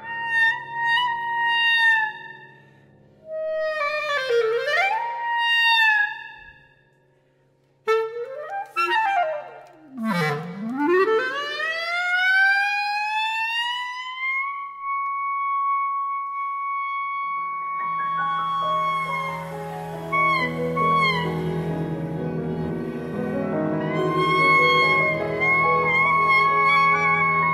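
Solo clarinet wailing in wide, steep glissandi that swoop down and back up, with a brief near-silent gap, then a long held high note. About 18 s in, rippling piano arpeggios, low sustained strings and a breathy flute join it in contemporary chamber music.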